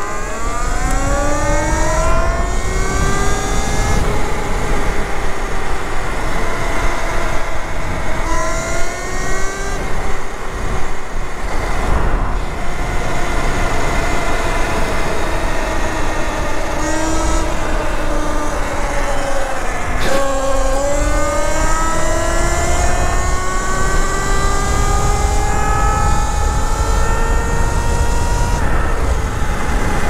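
Talaria Sting electric motorbike's motor, run by a GLE BAC8000 controller, whining under hard acceleration. The whine climbs in pitch several times as the bike speeds up and dips briefly about twenty seconds in before climbing again.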